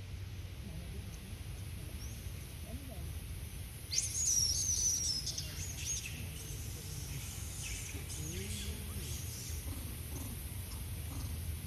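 A short burst of high-pitched bird chirps about four seconds in, then a few fainter chirps, over a steady low outdoor background noise.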